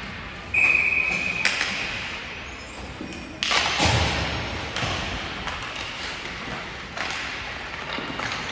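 A short, steady referee's whistle blast about half a second in, then a series of sharp knocks from hockey pucks and sticks hitting the boards and ice, echoing through the rink; the loudest comes about three and a half seconds in.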